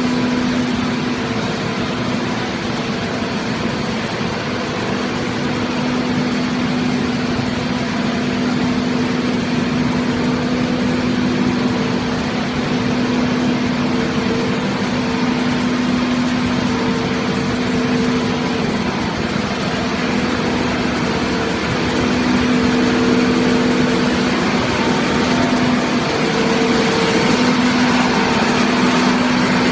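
Hydraulic car baler's motor and pump running steadily with a constant droning hum, growing slightly louder after about twenty seconds.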